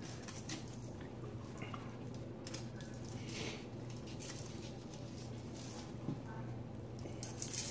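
Dry rub shaken from a plastic shaker bottle onto raw spatchcocked Cornish hens on a foil-lined sheet pan: a string of short, irregular shakes, the loudest near the end, with soft squishes as a hand presses the rub into the meat. A low steady hum runs underneath.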